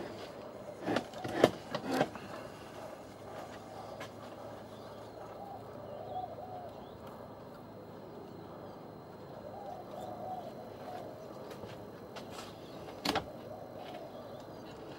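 A few sharp clicks and knocks from hands working a large-scale garden railway's lineside box and model wagons: three close together in the first two seconds and one more near the end. Birds call faintly in between.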